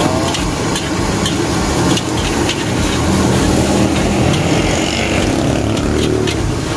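Metal spatula scraping and tossing fried rice around a large aluminium wok in quick repeated strokes, over the steady rush of the gas burner beneath it.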